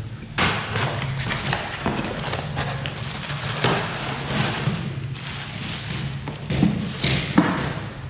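A water heater's cardboard box being opened by hand: flaps scraping and rustling and plastic wrapping crinkling, with a couple of louder thumps near the end as the box is handled.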